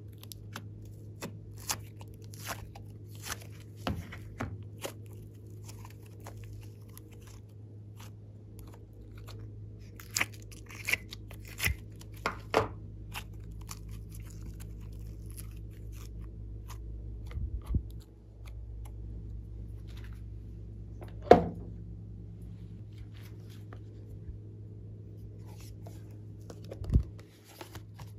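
Slime being handled and stretched by hand: a run of small sticky crackles and pops, with clusters of louder snaps and a sharper knock about two-thirds of the way in, over a steady low hum.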